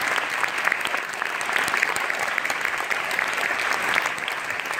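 Concert hall audience applauding steadily, a dense patter of many hands clapping.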